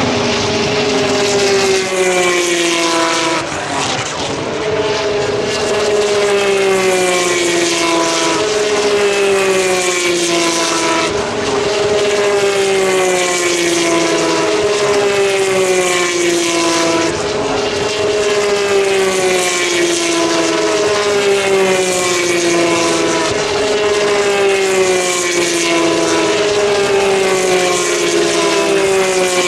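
Single-seater racing car engines passing one after another, each note falling in pitch as a car goes by before the next one comes through, about every one to two seconds.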